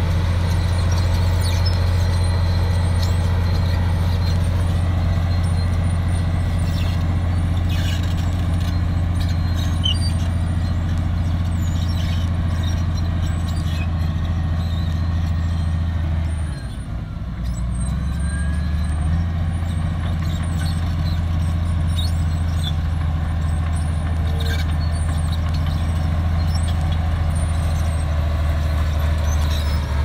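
Komatsu crawler bulldozer's diesel engine running steadily under load, with scattered clanks from the steel tracks. About halfway through, the engine note dips briefly, then picks up again.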